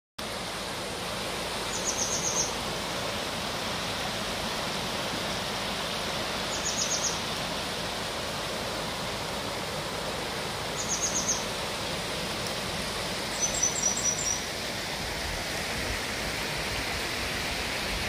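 A shallow stream rushing steadily over rocks. A small bird breaks in four times with a short, rapid, high trill.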